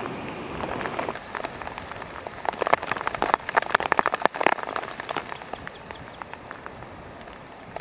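Rain dripping, with irregular sharp drops tapping close by. The taps come thickest in the middle few seconds and thin out near the end.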